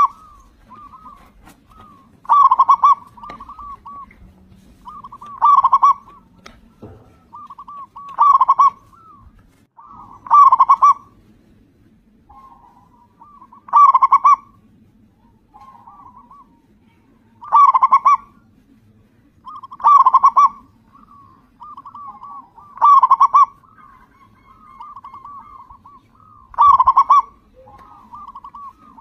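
Local Indonesian zebra dove (perkutut) in full song: a string of loud, rolling coo phrases about every three seconds, each with softer coos around it.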